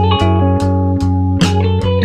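Background music: guitar over sustained bass notes, with a steady drum beat.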